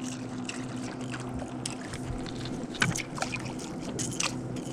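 Bass boat sitting on the water: a steady low hum with light water sounds and scattered sharp knocks and ticks, the loudest a little under three seconds in.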